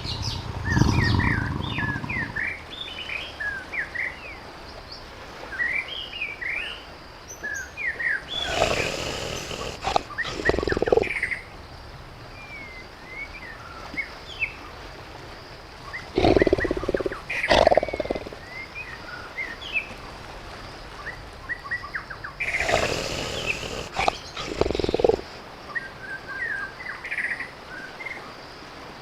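Tiger growling and roaring in several bouts: a low rumble at the start, then heavier roars about 9, 17 and 23 seconds in. Birds chirp between the roars.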